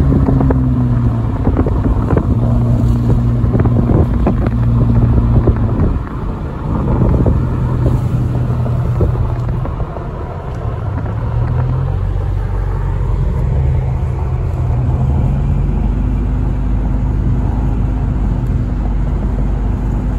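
A car driving at road speed: a steady engine hum over tyre and road noise, the hum shifting pitch in steps as the speed changes. It dips briefly about six seconds in.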